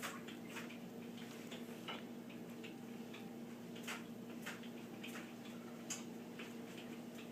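Scattered light clicks and taps from kitchen handling, irregular and a few a second, over a steady electrical hum.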